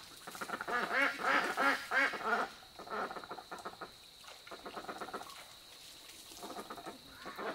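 Ducks quacking: a quick run of short calls from several birds in the first two seconds or so, then scattered fainter calls.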